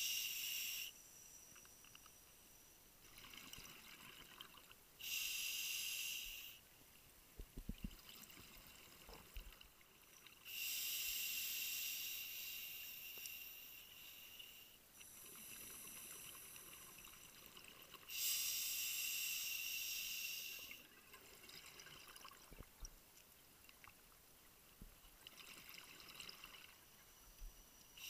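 Scuba diver breathing underwater through a regulator: hissing bursts of exhaled bubbles every few seconds, some lasting several seconds, with quieter breaths in between.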